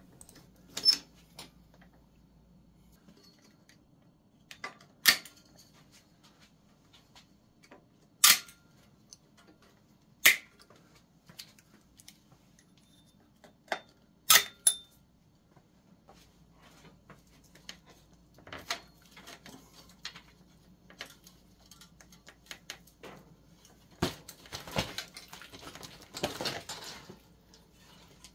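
Metal parts of a rusty 1974 Schwinn LeTour being handled and taken apart by hand: the derailleur, cable fittings and chain give a handful of sharp, isolated clicks and clinks, then a busier stretch of clinking and rattling near the end as the chain is handled.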